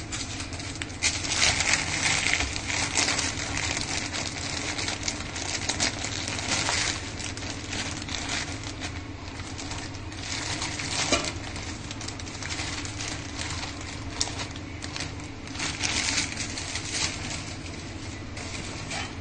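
Plastic bread bag crinkling and rustling irregularly as slices of white sandwich bread are pulled out and stacked, over a steady low hum.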